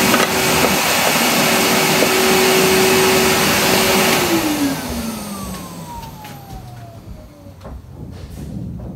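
Workshop dust extractor running with a steady hum, switched off about four seconds in and winding down, its pitch falling and its noise fading as it slows.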